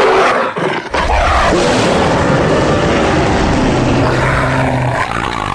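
Kaiju monster sound effect: a short burst, then from about a second in a long, loud, dense rumbling noise with faint pitched lines, cutting off abruptly.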